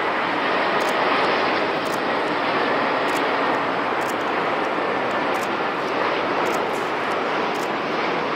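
Airbus A380 on final approach with landing gear down, its four jet engines giving a steady, even rush of noise that holds level throughout.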